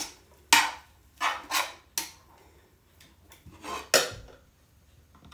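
Metal tongs clanking and scraping against a skillet as pasta is tossed, several sharp clanks in the first two seconds. About four seconds in comes a heavier clank with a low thump as the pan is lifted off the burner.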